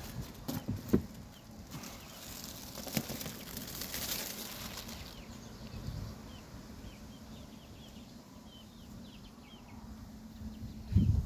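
A beehive being opened: a few sharp knocks and scraping of wooden hive parts and frames over a faint, steady hum of honeybees. In the second half, short high chirps come again and again.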